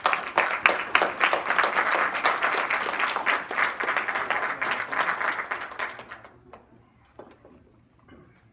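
Audience applauding: dense clapping that tapers off and dies away about six seconds in.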